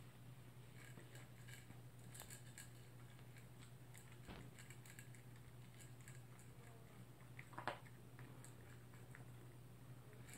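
Toy poodle eating from a food bowl: faint chewing heard as a run of many small clicks, with one louder click about three-quarters of the way through.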